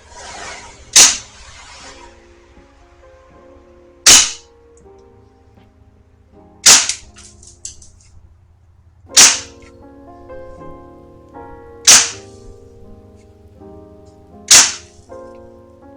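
VFC MCX airsoft electric gun firing single shots, a sharp crack about every two and a half seconds, six in all, over background music.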